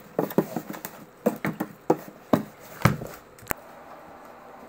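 Small clear balls dropped onto a wooden floor: an irregular run of sharp taps as they land and bounce, stopping with a last hard click about three and a half seconds in.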